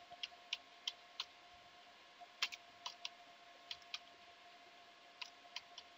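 Faint keystrokes on a computer keyboard: about a dozen irregular clicks, some in quick pairs, as a line of text is typed.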